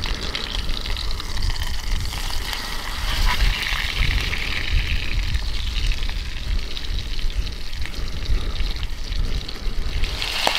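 Ribeye steak and haggis sizzling in a hot square metal pan, the meat moved about with tongs, with a low rumble of wind on the microphone underneath.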